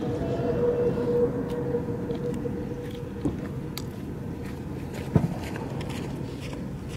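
Steady low rumble of idling armoured vehicle engines, with a held tone for the first couple of seconds, scattered clicks, and one sharp thump a little after five seconds.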